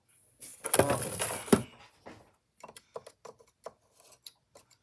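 Handling noise: about a second of rustling and scraping, then a run of light, irregular clicks and taps as the plastic cassette player and its surroundings are handled during cleaning.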